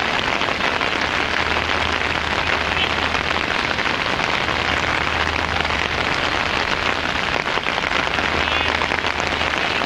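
Steady rain falling, a dense, even hiss with no break, over a faint low steady hum.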